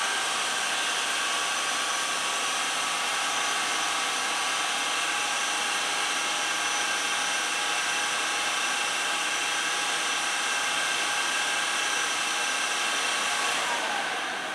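Revent 724 double rack gas oven running with its rack stopped: a steady rushing hum with several steady tones that begins to die away near the end.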